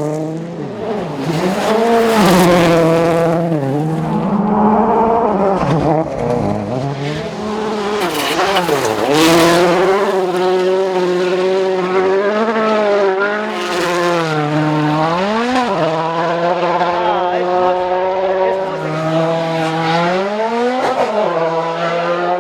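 Rally car engine at full throttle on a special stage, the revs climbing and dropping sharply again and again as the driver shifts gear and lifts for corners, with bursts of tyre and gravel noise.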